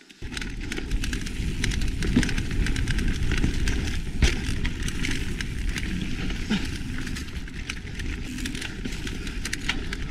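Mountain bike riding down a dirt singletrack: a steady low rumble of tyres on the trail with frequent rattles and clicks from the bike, and one sharper knock about four seconds in.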